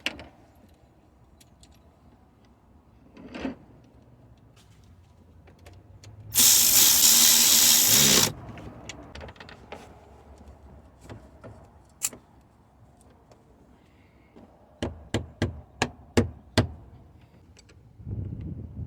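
A power tool runs for about two seconds, driving on a 10 mm nut. Near the end comes a quick run of about seven sharp clicks.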